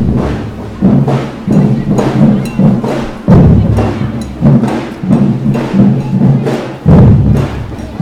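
A group of street drums playing a steady, driving rhythm, with heavy low drum hits about every three and a half seconds.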